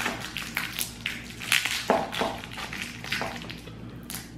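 Plastic candy wrapper crinkling and crackling as it is peeled off a pecan praline, in short irregular crackles.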